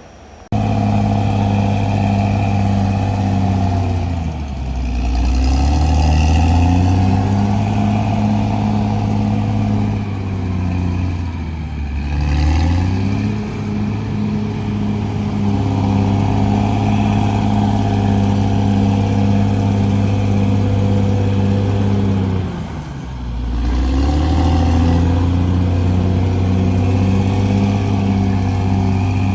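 CAT D6R XL bulldozer's diesel engine running hard, its pitch sagging briefly three times and then climbing back, as the engine is pulled down and recovers.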